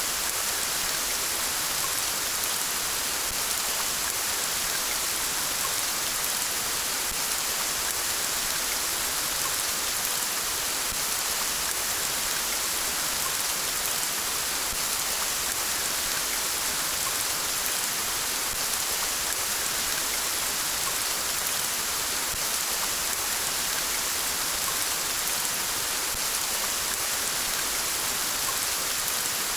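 Steady rain falling, an even hiss weighted to the high end with no breaks or changes.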